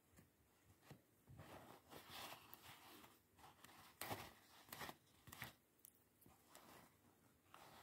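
Faint, irregular rustling and crinkling of a paper towel under moving hands, with a couple of soft clicks near the middle.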